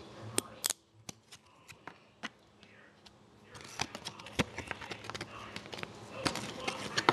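A foil hockey-card pack wrapper crinkling and tearing open, with sharp crackles and clicks as the cards are pulled out. It goes quiet for a couple of seconds after the first clicks, then the crackling gets busier from about halfway.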